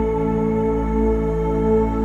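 Ambient new-age background music with long held tones.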